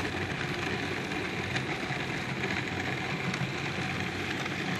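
Food processor running steadily, mixing a thick date filling.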